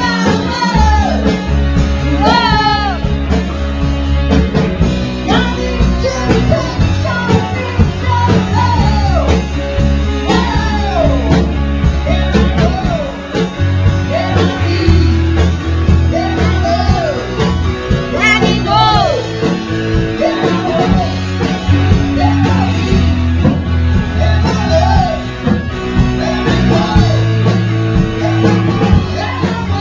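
Rock song with a singer and electric guitar over a steady bass line.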